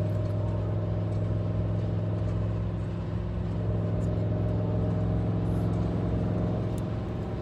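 Steady low hum of a car heard from inside its cabin, unchanging throughout.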